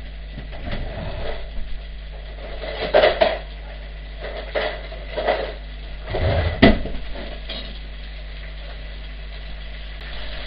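Kitchenware being handled on a counter: a run of knocks and clinks of pans, plates and utensils, loudest about three seconds in and again just past six seconds, over a steady low hum.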